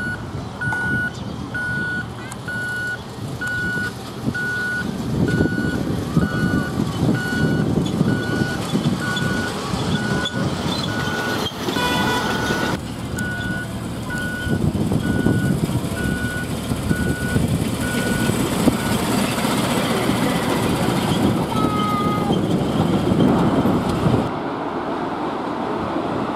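Electronic warning beeper sounding one beep about once a second, stopping about two-thirds of the way through, over the loud, steady rumble of a heavy vehicle's engine.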